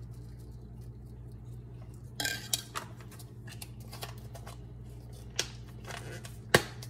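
A measuring spoon scooping dried basil from its container and knocking against the container and bowl. There are light clicks and a short scrape about two seconds in, and a sharper click near the end, over a steady low hum.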